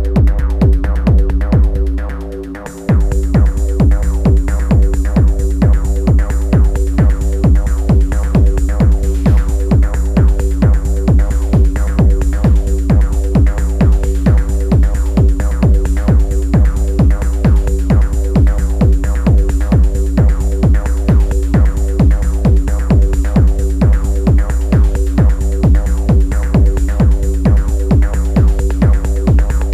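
Techno played live on an Elektron Analog Rytm drum machine: a steady kick pattern with hi-hats over a held drone. About two seconds in, the kick drops out for under a second, then comes back with brighter hats.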